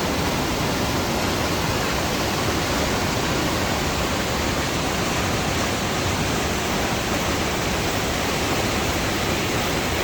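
Waterfall rushing close by: a steady, even roar of falling water that holds unchanged throughout.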